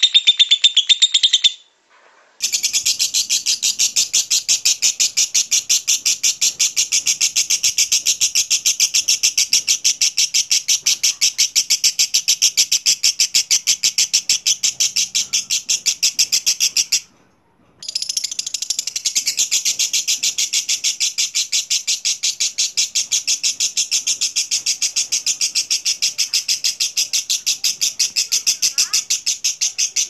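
Lovebird singing the long 'ngekek' chatter: an unbroken run of very rapid, shrill, evenly spaced notes that stops for under a second near the middle and then carries on. A brief snatch of higher song sits before it at the very start, followed by a short gap.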